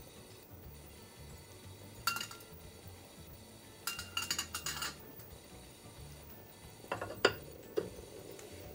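Kitchen utensils clinking: a click, then a quick run of metal clinks from tongs against ceramic. Near the end come a few heavier knocks as the ceramic lid is set onto the clay donabe pot.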